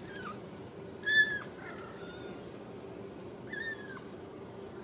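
Ragdoll kitten mewing for its mother: a few short, high-pitched mews that drop in pitch at the end, the loudest a little over a second in.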